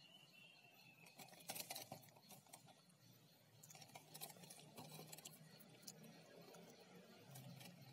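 Faint crinkling and crackling of plastic shrink-wrap on a toy car kit box as it is handled and turned over, in small clusters about a second in, around four to five seconds in, and near the end.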